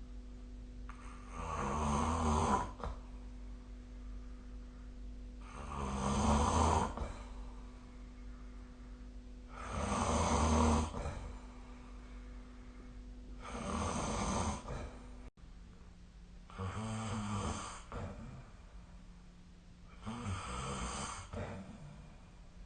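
A person snoring in sleep: six snores, each about a second and a half long, coming roughly every four seconds, over a steady low hum.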